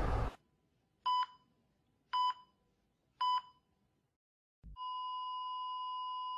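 Hospital heart-monitor sound effect: three short electronic beeps about a second apart, then a brief low thump and a steady unbroken flatline tone starting near the end, the flatline signalling that the patient's heart has stopped.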